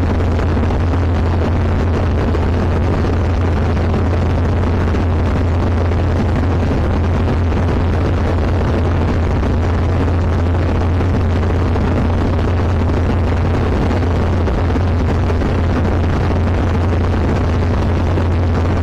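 Zenith CH701 light aircraft's engine and propeller running steadily in cruise flight, heard inside the cockpit as a strong, even low hum under a constant rush of engine and wind noise.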